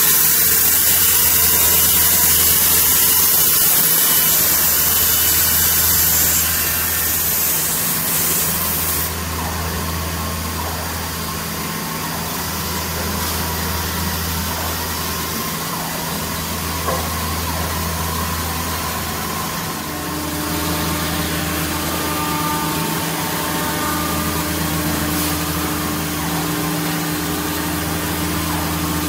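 Woodmaster WM-1325RS CNC router's saw blade cutting through a wood panel with a loud hiss for the first six or seven seconds, then the cut ends and the machine's motors run on with a low hum. About two-thirds of the way through, a steady higher tone joins in.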